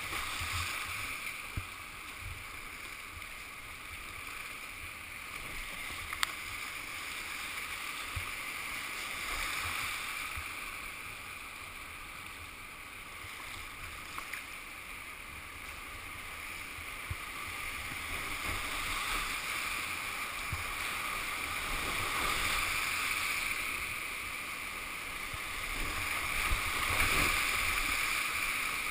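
Whitewater rapids rushing and splashing close around a kayak as it paddles down, swelling louder near the end, with a few sharp knocks along the way.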